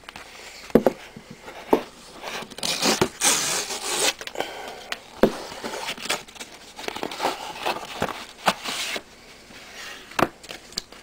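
Paper mailing envelope being handled and torn open: two longer stretches of rustling and tearing, with several sharp knocks and bumps.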